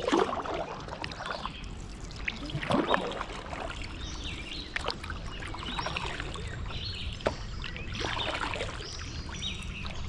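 Canoe paddle strokes splashing and dripping in the river, with a few sharp splashes. Thin, high bird calls come in through the second half, which the paddlers take for eagles.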